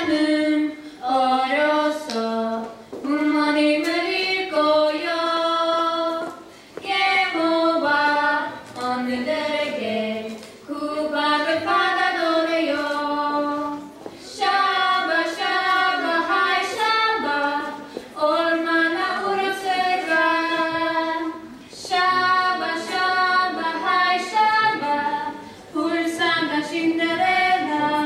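A woman singing solo and unaccompanied, a melody sung in phrases of about two seconds with short pauses for breath between them.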